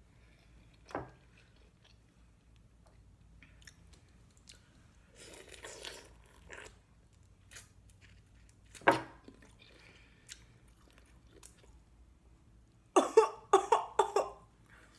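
Close-miked eating of boiled shrimp and mussels: scattered soft chewing, mouth clicks and smacks. Near the end comes a cluster of short, loud coughs.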